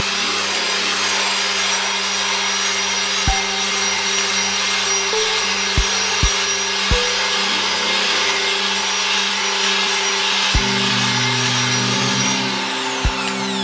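An electric drill spinning a homemade disc of stacked wire-mesh squares (cut from a truck air-filter screen) against a rusty steel cylinder: a steady, harsh scrubbing noise as the mesh strips rust, with a few sharp knocks. Near the end it fades with a falling whine as the drill spins down. Background music plays underneath.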